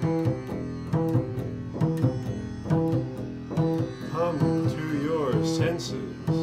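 Upright double bass played pizzicato: plucked low notes in a loose, improvised pattern, a strong pluck about once a second with lighter notes between, each ringing and dying away.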